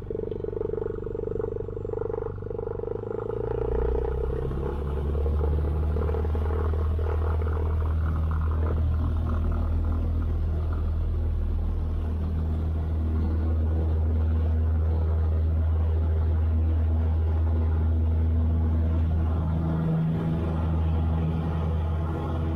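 Cessna 172's piston engine and propeller heard from inside the cockpit. A steady high tone sounds over the engine for the first few seconds, then the engine drone grows louder about four seconds in, as power comes up, and holds steady.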